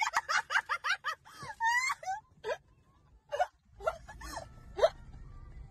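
A woman screaming in fright: a fast string of high, swooping shrieks, then shorter cries spaced out with pauses between them.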